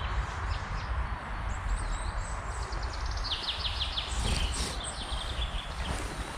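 Forest birds singing, several calls at once, with a rapid run of repeated high notes about three and a half seconds in. A steady low rumble and hiss lie underneath.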